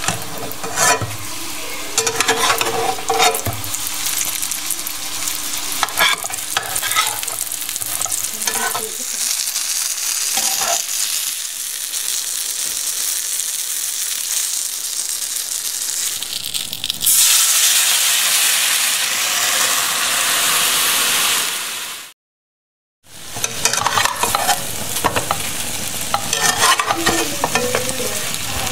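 Dough buns sizzling as they fry in a little olive oil in a stainless steel pan, with a metal spatula scraping and tapping against the pan. The sizzle runs steadily and grows louder about two-thirds of the way through. It cuts off for about a second near the end, then resumes with more scraping and tapping.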